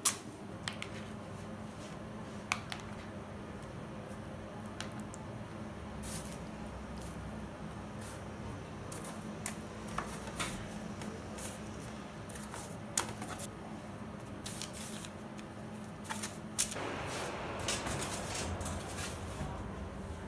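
Steady machine hum in a bakery kitchen, with scattered light taps and clicks of hands working pastry dough on a baking tray. A louder rushing noise rises near the end.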